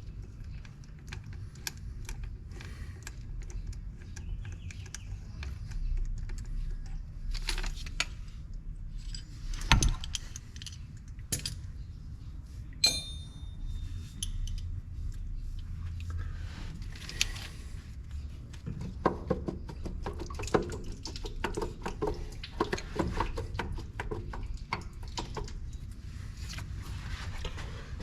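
Scattered metallic clinks, knocks and rattles of hand tools and metal parts being handled, over a steady low rumble, with one short metallic ring about 13 seconds in.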